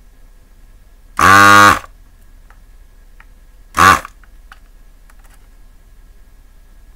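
Vacuum pump of a handheld desoldering gun buzzing loudly in two bursts, a half-second one and then a shorter one, as it sucks molten solder off the pins of circuit-board switches.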